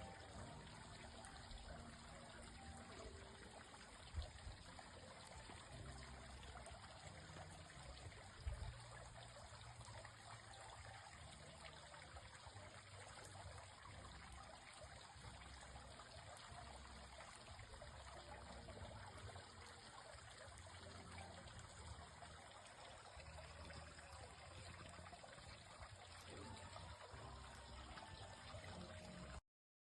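Faint, steady rushing noise like trickling or running water, with two brief low thumps about four and eight seconds in. It cuts off abruptly near the end.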